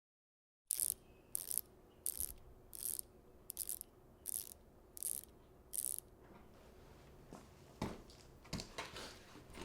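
About eight short ratcheting strokes, evenly spaced under a second apart, followed by a few scattered knocks and thuds.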